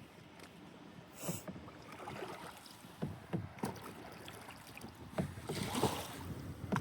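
A paddle being worked through the water beside a small Pond Prowler fishing boat: two swishing strokes with scattered light knocks between them.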